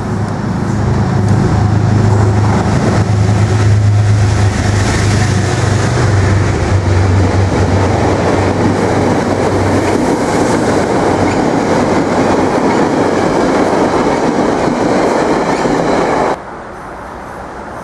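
Locomotive-hauled passenger train passing close at speed: a strong low hum as the locomotive comes up and goes by, then the steady rush and rattle of the coaches' wheels on the rails. The sound stops abruptly about sixteen seconds in, leaving only a quieter background.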